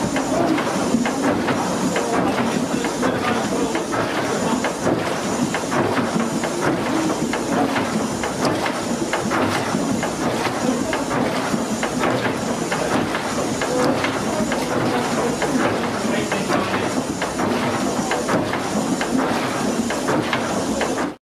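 Condenser water churning and splashing in the open hot well as the air pump of a cross-compound steam mill engine discharges it, over the steady running of the engine, with a regular beat about once a second.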